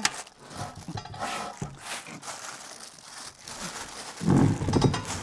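Plastic sheeting crinkling and rustling as a heavy cast-iron oven door wrapped in it is hauled out of a cardboard box. About four seconds in comes a loud, low strained grunt of effort from a lifter.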